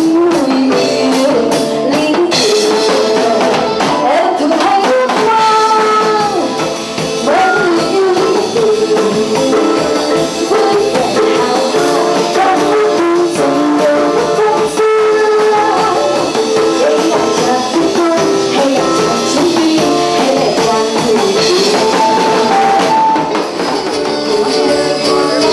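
Live band playing a song with a woman singing lead, a drum kit keeping a steady beat.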